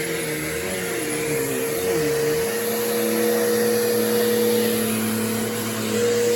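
Bissell CleanView Revolution Deluxe bagless upright vacuum running on carpet: a steady motor whine over a lower hum that wavers for the first couple of seconds, then settles to a steady pitch.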